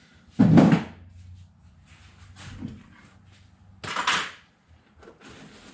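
Two short handling knocks: a heavy, low thump about half a second in, then a sharper, brighter clatter about four seconds in, at the workbench.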